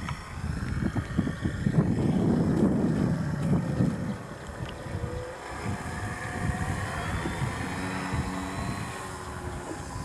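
Electric motor and propeller of a radio-controlled STModel Beaver floatplane running on a 3S battery, with a thin whine that rises in pitch a little past halfway as it powers along the water into a takeoff. Wind rumble on the microphone is heaviest in the first few seconds.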